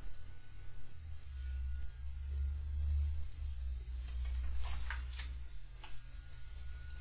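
Scattered computer mouse clicks over a low, steady hum.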